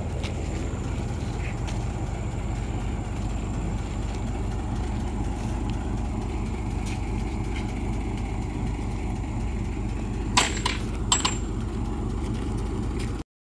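Diesel engine of a loaded sand tipper truck idling with a steady low rumble. Two sharp knocks come a little after ten seconds in, and the sound cuts off suddenly just before the end.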